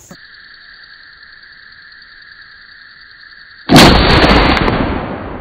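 A single shot from a single-shot NEF 12-gauge shotgun firing a heavy 2.5-ounce slug handload, a little under four seconds in: one sudden, very loud report with a long rumbling tail that slowly dies away. Before the shot there is a steady, high insect drone.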